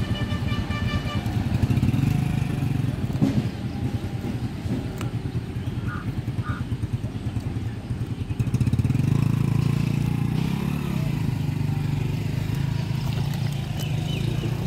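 An engine running steadily with a low, pulsing sound; it gets louder about eight and a half seconds in.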